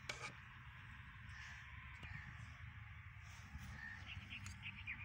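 Faint open-air ambience with birds calling in the distance and a quick run of short, high chirps near the end, over a low steady rumble.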